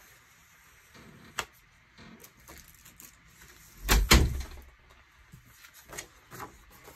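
Paper planner pages being handled, slid and lifted on a hard tabletop: a sharp click about a second and a half in, and a louder thump with a paper rustle about four seconds in, then a few soft taps.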